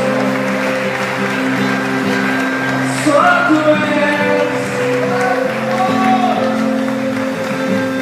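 Worship music: a band holds long sustained chords, with some singing over it.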